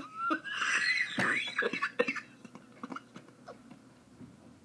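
A woman's high-pitched, squeaky laughter lasting about two seconds, then a few faint clicks.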